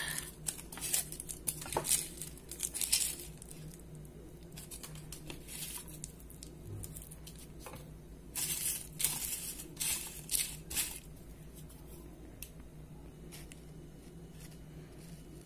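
Dry rustling and crinkling as garlic cloves and their papery skins are handled in a small wooden crate beside paper and plastic bags. It comes in short bursts near the start and again about halfway through, with lighter ticks in between.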